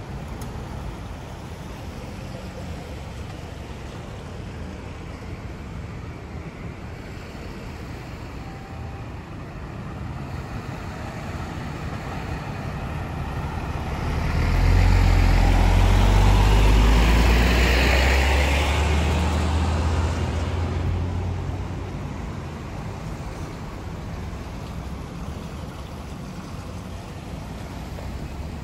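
A motor vehicle passes close by on the road. Its engine rumble and tyre hiss build up, are loudest around the middle, then fade away over steady background traffic noise.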